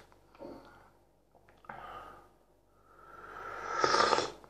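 A person sipping tea from a mug with a long noisy slurp that swells and cuts off sharply near the end, after a couple of shorter, softer sounds earlier.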